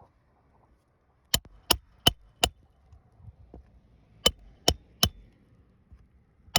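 Hammer driving nails into a roof shingle: four quick strikes, a pause of about two seconds, then three more, and one more at the end.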